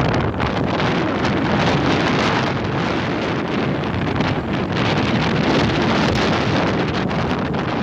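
Steady wind buffeting the microphone aboard a moving tour boat, with the boat's engine and water rushing underneath.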